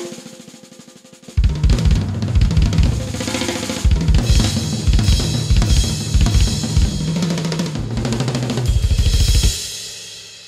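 Recorded music: a percussion-led passage. Heavy drum hits with strong bass come in about a second in, run in a busy rhythm with cymbals and stop sharply near the end, leaving a fading ring.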